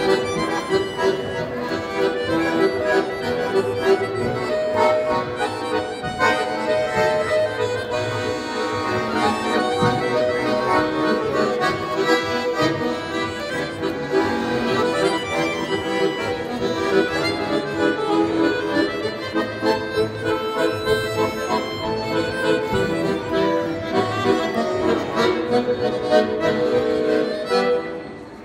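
Two accordions, a piano accordion and a button accordion, playing a tune together; near the end the playing stops.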